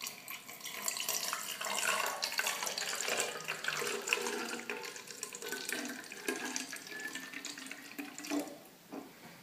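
Water pouring from a plastic measuring jug into a plastic water bottle, a continuous splashing trickle whose pitch rises slowly as the bottle fills; the pour stops shortly before the end.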